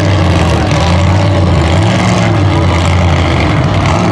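Monster mud truck's engine running hard under load as the truck crawls over a stuck vehicle, its note swelling and dipping as the throttle is worked around the middle.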